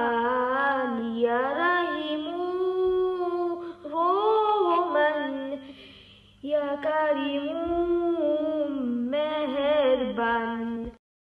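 A woman's voice singing a Bengali Islamic devotional song in long, held, gliding notes, with a short pause partway through. It cuts off suddenly near the end.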